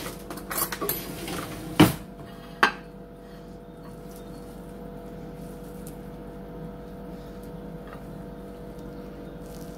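A metal fork clinking against a ceramic plate while cutting a bite of meatloaf: a few sharp clinks in the first three seconds, the loudest just before two seconds in. After that only a steady low hum.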